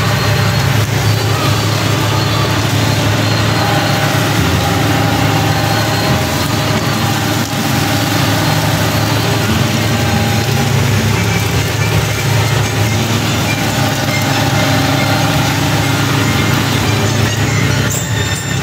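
John Deere 5045D tractor's three-cylinder diesel engine running steadily, heard from the operator's seat.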